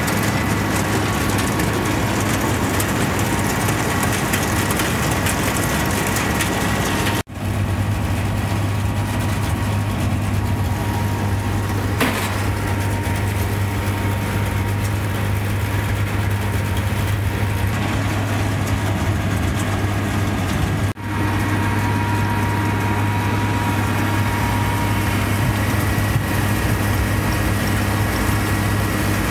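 Tractor engines and PTO-driven machinery running steadily: a forage box unloading chopped haylage into a Kelly Ryan silage bagger, a constant low hum with a few steady whines above it. The sound drops out briefly twice, about seven and about twenty-one seconds in.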